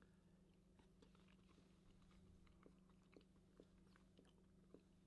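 Very faint chewing of a mouthful of baked beans: soft, scattered wet mouth clicks over a faint steady hum.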